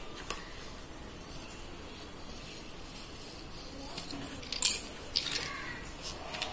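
A microSD card's plastic-and-card blister pack being cut open and handled: a small click near the start, a few light clicks and rustles, then a short, sharp crinkle of the packaging just over halfway through, the loudest sound, with a couple of smaller crinkles after it.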